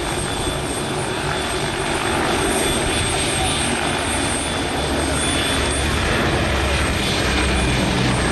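Bristol Blenheim's two Bristol Mercury radial piston engines running as the bomber flies a display pass, growing a little louder in the second half as it comes closer.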